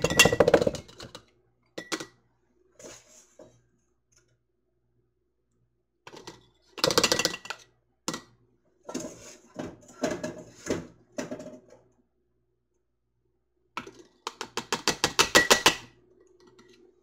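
A utensil clinking and tapping against glass quart canning jars as browned ground sausage is measured into them. The clicks come in several separate bursts, with a fast run of taps near the end.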